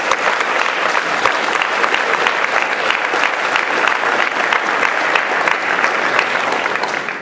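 Large audience applauding, many hands clapping at once in a continuous stream, dying away near the end.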